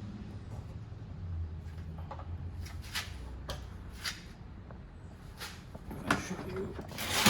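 Scattered light clicks and knocks of a screwdriver and small antenna parts being handled, over a low steady hum.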